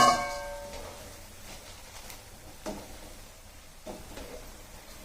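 A single loud metallic clang of a metal kitchen utensil knocking against metal cookware, ringing out for under a second, followed by a few faint soft knocks.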